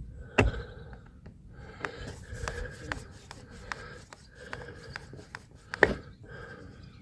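A hand screwdriver working an old screw out of a wooden deck covering board: rubbing and small clicks as it turns, with two sharper knocks, about half a second in and again near the end.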